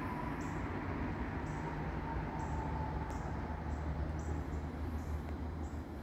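Steady low rumble of distant road traffic, with crickets chirping high and thin in short, irregular bursts about once or twice a second.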